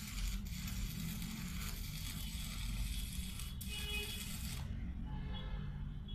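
Electric arc welding on galvanized iron: the arc gives a steady crackling hiss, breaks off briefly about three and a half seconds in, and stops about a second later, leaving a low hum.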